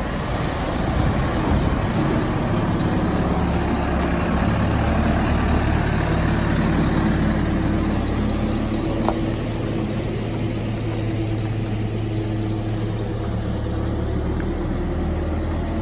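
Telehandler's diesel engine running steadily, an even low drone.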